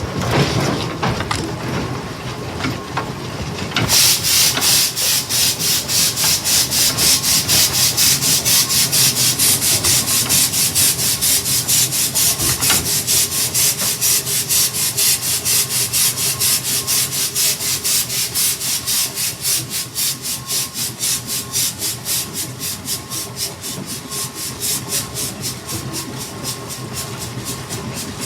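Fowler BB1 steam ploughing engine working along the road, its exhaust beat chuffing in an even rhythm that starts about four seconds in, about three beats a second, easing slightly slower toward the end.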